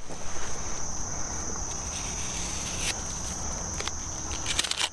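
Steady high-pitched trill of insects, over a loud, even rushing noise that starts suddenly, with a few sharp clicks near the end.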